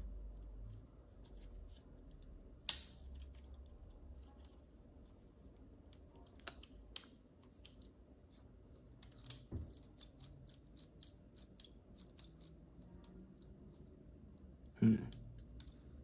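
Small plastic and metal parts of a GFCI outlet clicking and ticking as they are worked apart by hand, with a sharp snap a few seconds in and a louder, duller knock near the end.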